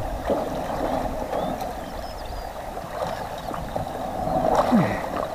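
River water flowing and lapping steadily around a stalled motorcycle and the people standing in the current.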